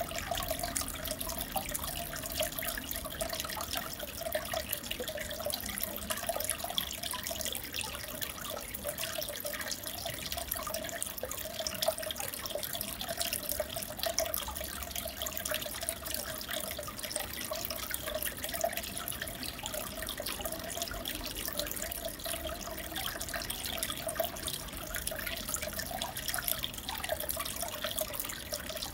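Aquarium water bubbling and trickling steadily, a continuous flickering sound with fine crackle above it.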